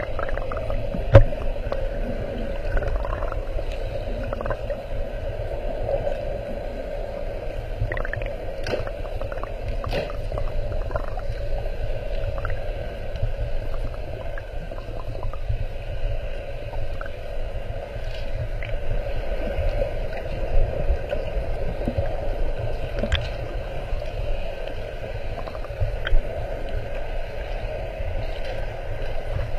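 Muffled underwater sound picked up through a GoPro Hero 4 Silver's waterproof housing: a steady hum and low rumble with scattered small clicks. A sharp knock about a second in and another near the end.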